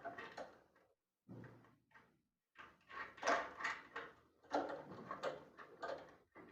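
A wooden loft cabinet door being moved and handled while a gas strut stay is fitted to it: several short bursts of knocking and rubbing, separated by dead silence.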